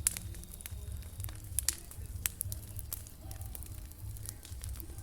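Large outdoor bonfire of cleared brush crackling, with irregular sharp pops scattered through and a steady low rumble underneath.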